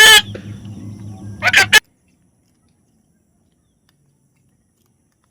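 Loud, harsh bird calls, one at the start and another about a second and a half in, over a low steady hum; then all sound cuts off abruptly.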